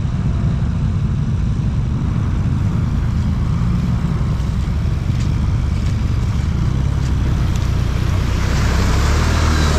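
ATV engine running, getting a little louder with more hiss near the end.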